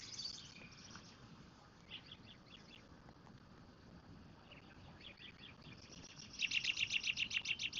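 Evening chorus of small chirping critters. A few faint, short runs of high chirps come first, then about six and a half seconds in a loud, rapid, evenly pulsed chirping starts, at about eight pulses a second.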